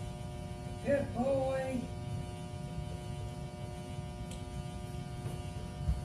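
Steady electrical hum, with a short, high, sing-song vocal sound about a second in and a few faint taps near the end.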